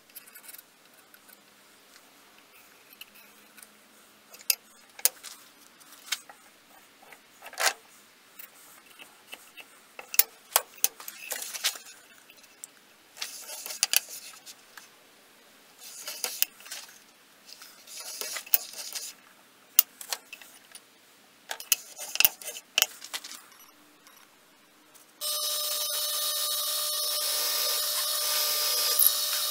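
Scattered sharp taps and clicks of marking tools, a scribe and a height gauge, handled on a surface plate. About 25 seconds in, a drill press starts and runs with a steady whine, boring into a desert ironwood handle block.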